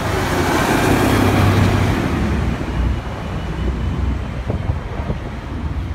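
A road vehicle passing close by, its tyre and engine noise swelling over the first couple of seconds and then fading, over a steady low rumble of traffic.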